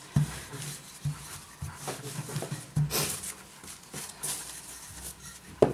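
Wooden rolling pin rolling over pizza dough on a floured silicone mat, with soft irregular knocks and rustles as the dough is handled and stretched, and a sharp knock near the end.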